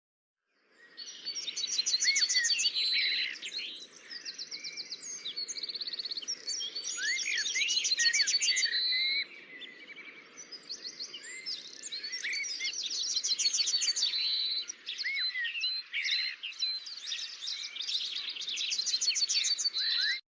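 Several songbirds singing at once: a busy chorus of rapid trills, chirps and short rising whistles, over a low steady hiss. It cuts off suddenly near the end.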